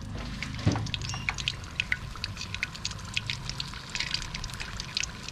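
Battered banana fritters frying in hot oil: a rapid, irregular crackle of popping and spitting, over a low rumble. A single knock stands out about a second in.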